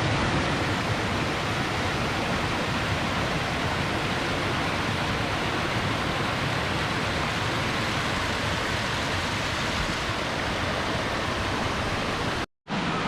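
Waterfall rushing: a steady, even roar of falling water that cuts off abruptly near the end.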